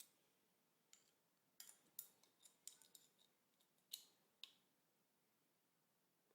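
Faint, sharp metallic clicks and taps, about a dozen between one and four and a half seconds in, as the steel magazine follower, spring and floorplate are fitted back into a Mauser K98k rifle's trigger guard.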